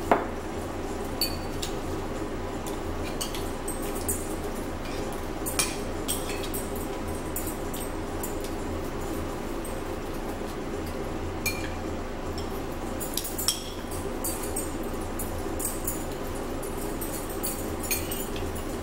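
Metal spoons clinking against ceramic bowls: sharp, irregular clinks every second or few, the loudest right at the start, over a steady low background hum.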